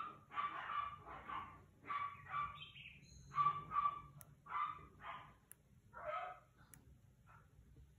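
A dog barking repeatedly, short barks coming every half second or so, some in quick pairs.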